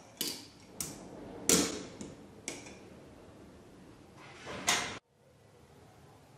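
Tube-type BB speed loader working BBs into a gas blowback airsoft rifle magazine: several separate plastic scrapes and clicks, the loudest about one and a half seconds in and another at about four and a half seconds. The sound cuts off abruptly about five seconds in.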